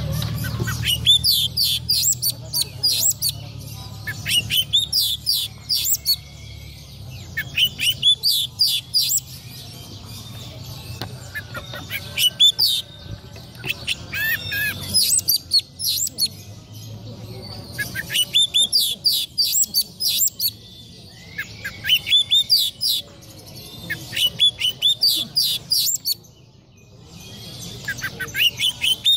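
An Oriental magpie-robin (kacer) singing. It gives phrase after phrase of rapid, high, sweeping notes, a new burst every two or three seconds, with short pauses between.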